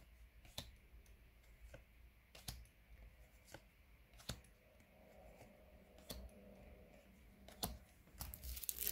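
Faint, scattered clicks and flicks of trading cards being flipped one by one through a stack in the hand. Near the end a louder rustling starts.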